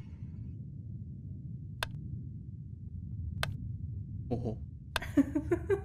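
Two sharp clicks about a second and a half apart over a low steady rumble. A short murmur of a voice comes in near the end.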